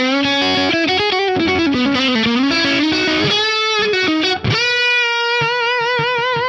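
Electric guitar lead played on a Fender Stratocaster with Lace Sensor pickups through an Axe-Fx III amp model with a little grit, its dynamics evened out by an optical-style compressor. A run of quick notes and a string bend, then a note held from about two-thirds in with wide vibrato near the end.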